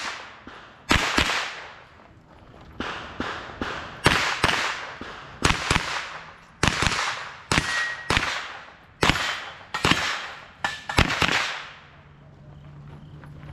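Pistol shots fired in quick pairs and short strings, more than a dozen cracks, each trailing off briefly: a competitor shooting a USPSA stage. The shooting stops about twelve seconds in.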